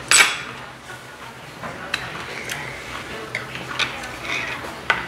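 Slurping hot soup off a spoon, loudest just after the start, then a few sharp clinks of metal spoons against stone ttukbaegi bowls.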